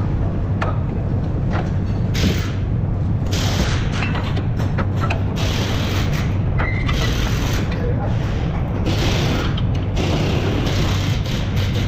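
Hand tools and metal parts being handled at a car's front lower control arm and ball joint, with irregular bursts of scraping and clinking over a steady low hum.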